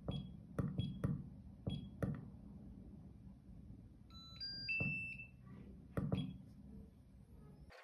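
Buttons on an Ultra Power UP650 hobby battery charger being pressed, several quick clicks each with a short high beep. About four seconds in, the charger gives a short run of beeps at stepping pitches as it sets up a 2-cell lithium polymer charge.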